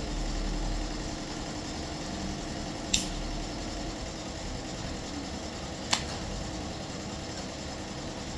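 Steady low engine-like rumble and hiss, broken twice by a sharp click about three seconds apart.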